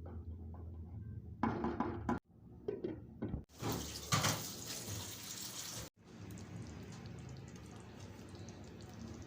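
Wet kitchen sounds from a few short clips cut together: a steady watery hiss, with louder splashing and clatter about one and a half seconds in and again about four seconds in.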